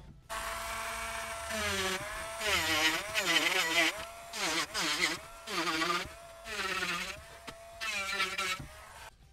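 A small electric power tool's motor whining in several short runs, its pitch dropping and recovering again and again as it is loaded.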